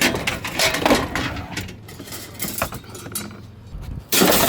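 Scrap metal being handled and loaded, clinking and clattering in a run of sudden knocks, with a louder clatter about four seconds in.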